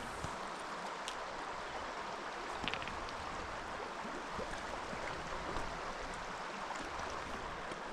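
Trout stream water running steadily, an even rushing hiss, with a few faint ticks about one and three seconds in.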